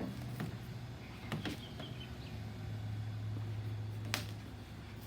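EV charging cable being coiled by hand: a few light knocks and taps as the cable and its connector move, the sharpest one near the end, over a steady low hum.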